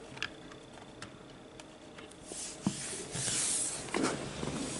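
Handling of HO scale model railroad cars: scattered light clicks, a sharper click about two and a half seconds in, then a stretch of hissy rustling.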